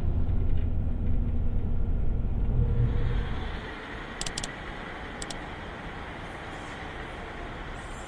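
Low, loud rumble of a moving vehicle. About three and a half seconds in it drops away to a quieter steady hiss, with a few sharp clicks.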